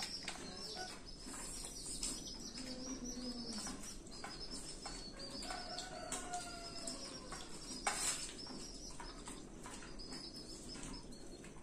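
Birds chirping steadily in the background, with scattered soft clicks and clinks of hands eating from steel plates and a sharper clink about eight seconds in.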